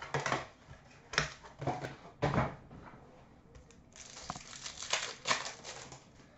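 Wrapper crinkling and tearing as a box or pack of trading cards is opened: several short crackly rips, then a longer rustle of handling near the end.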